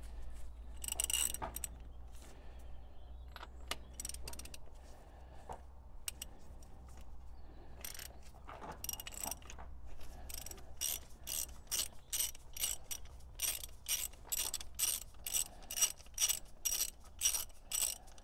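Ratchet wrench with a spark plug socket clicking as it unscrews a spark plug from the cylinder head: a few scattered clicks at first, then a steady run of about three clicks a second over the last seven seconds.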